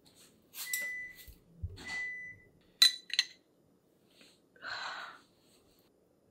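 Washing machine's end-of-cycle signal: two short high-pitched electronic beeps about a second apart, meaning the wash has finished. They are followed by two sharp clicks, the loudest sounds, and a brief rustle.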